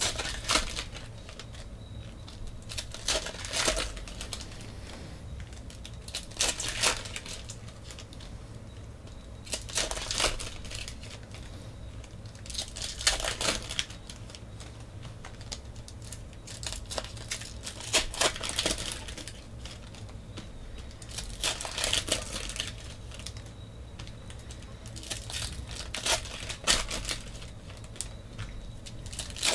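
Foil wrappers of 2014 Panini Elite Extra Edition baseball card packs being torn open and crinkled, one pack after another, in bursts of rustling about every three to four seconds. The cards are handled between the bursts, over a low steady hum.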